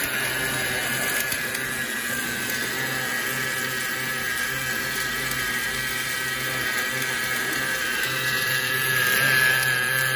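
Automatic wire-fed gas-shielded (MIG) welding arc burning steadily as the machine welds a rod end onto a hydraulic cylinder rod: a continuous hissing, crackling noise over a steady low hum, swelling slightly near the end.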